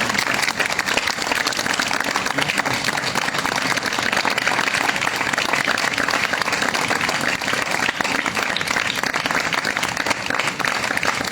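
A crowd of children clapping in a sustained round of applause that keeps going without a break.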